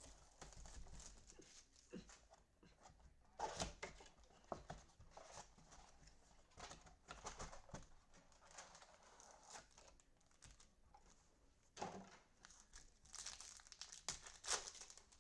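Plastic and foil wrapping on a box of football trading card packs being torn open and crinkled, in soft, scattered rustles and sharp crackles, the loudest about three and a half seconds in and again near the end.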